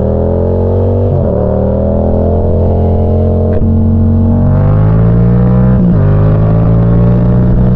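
Yamaha FZ-07's parallel-twin engine accelerating under load as the bike is ridden through the gears. The pitch climbs steadily, drops sharply at an upshift about a second in and again near six seconds, then climbs again.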